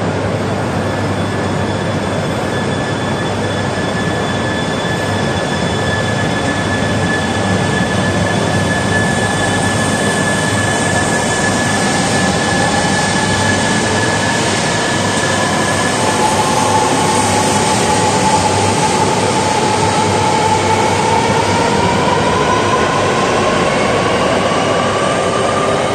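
E3 series Shinkansen train pulling out and accelerating over steady running noise. In the first half there is a steady high whine. From about ten seconds in, the traction-motor whine rises steadily in pitch as the train gathers speed.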